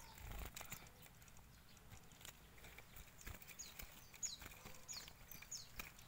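Faint soft knocks and clicks of bamboo bird cages being handled, then from about halfway in four short high chirps, each falling in pitch, from oriental white-eyes.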